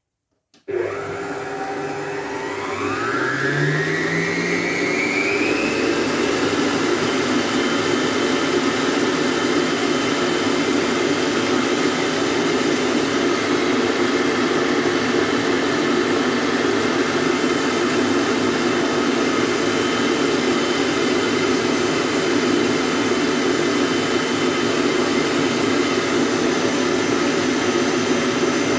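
AEG stand mixer switching on about a second in. Its motor whine rises over several seconds as it speeds up, then it runs steadily, beating cream in its steel bowl under the plastic splash guard.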